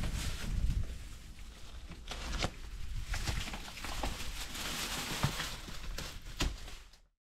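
Light knocks and rustling as an old wooden lattice door is pulled open and hanging cloth curtains are pushed aside; the sound cuts off abruptly near the end.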